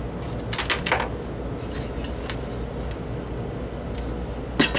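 Brass and white glass lamp parts handled on a wooden workbench: scattered clinks and knocks, a cluster in the first second and the sharpest one near the end, over a steady low hum.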